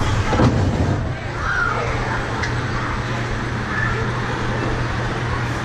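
Ride station ambience: a steady low hum under faint voices of people nearby. There is a single knock about half a second in and a lighter click about two and a half seconds in.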